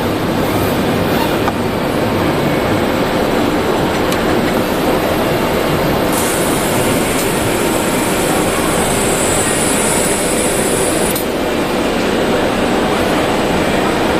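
Automatic cutting and creasing machine running with a steady, loud mechanical noise. A higher hiss joins for about five seconds midway, then stops suddenly.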